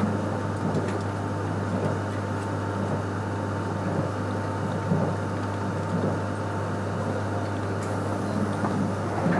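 Joetsu Shinkansen train running at speed, heard from inside the carriage: a steady low rumble and rush of running noise with a faint steady hum.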